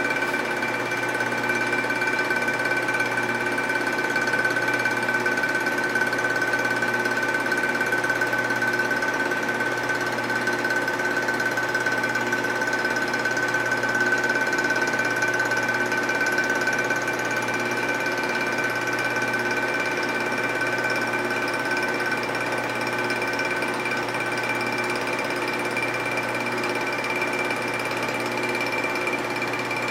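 Vertical milling machine running with its end mill taking a light cut in a welded aluminium Harley-Davidson knucklehead crankcase as the rotary table is hand-cranked round: a steady whine over a dense cutting noise, easing slightly in the second half.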